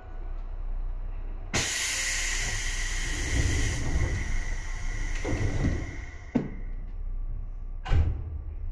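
Compressed air hissing loudly on a Seibu 2000-series electric train. The hiss starts suddenly about a second and a half in and fades out over several seconds. Two sharp knocks follow near the end.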